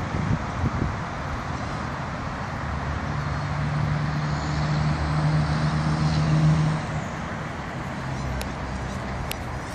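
Road traffic: a steady rush of passing cars, with one vehicle's engine hum swelling from about three seconds in, loudest near six and a half seconds, then fading as it passes.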